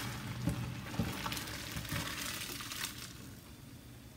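Hot pasta water and spaghetti being poured from a pot into a stainless-steel colander in a steel sink: water splashing and draining, with a few light knocks. The splashing dies down about three seconds in.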